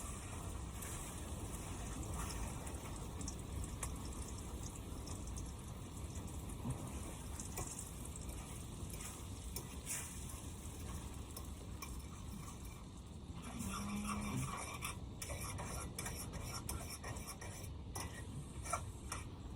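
Food frying in a well-buttered pan on a Coleman portable stove: a steady low sizzle with fine crackling. Over the last several seconds come a few sharper light clicks.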